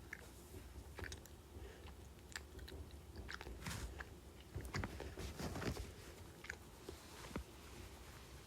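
Close-miked mouth sounds of someone biting and chewing candy: irregular small clicks, busiest and loudest about five seconds in.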